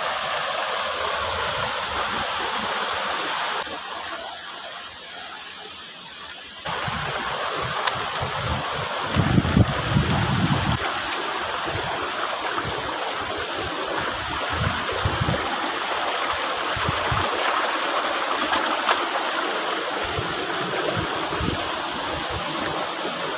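Steady rushing of river water above a waterfall. The sound drops suddenly for about three seconds a few seconds in, then comes back as suddenly, and a brief low rumble comes about ten seconds in.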